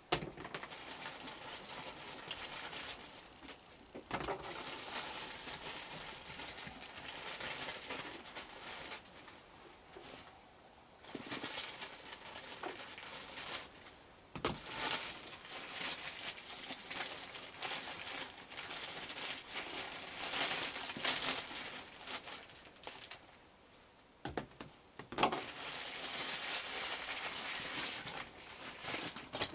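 Raccoons eating on a wooden deck: stop-and-start crunching and rustling, with a few short knocks.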